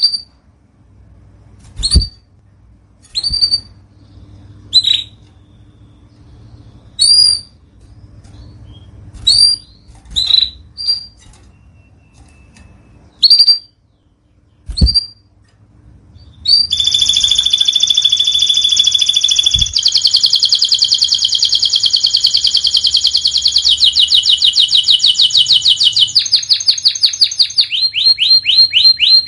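Canary calling with single sharp chirps spaced a second or two apart, then breaking about halfway in into continuous song: long, fast trills and rolls of rapidly repeated high notes that shift in pitch every few seconds.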